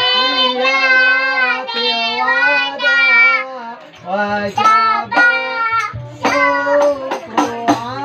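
A toddler boy singing an Islamic sholawat in a high child's voice. He holds long wavering notes for the first few seconds, pauses briefly about halfway through, then sings shorter, choppier phrases.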